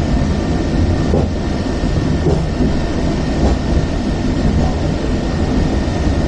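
Fifth-generation Hong Kong Peak Tram funicular car running on its rails, heard from inside the car: a steady low rumble with a faint, steady high whine.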